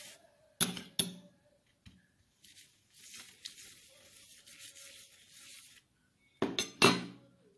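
A steel spoon spreading coconut oil over a ragi chapati on a steel plate: a soft, high scraping as the spoon rubs across the flatbread, with two sharp clinks of spoon on plate about half a second in and two louder clinks near the end.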